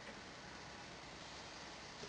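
Quiet room tone: a steady faint hiss, with one faint tick just after the start.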